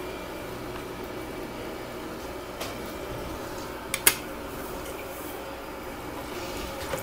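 Steady low kitchen hum, with a light click about two and a half seconds in and a sharper click about four seconds in as utensils knock against an aluminium cooking pot.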